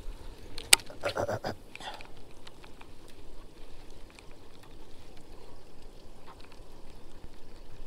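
A baitcasting reel being wound in after a cast: one sharp click about a second in, then faint small ticks over light water noise.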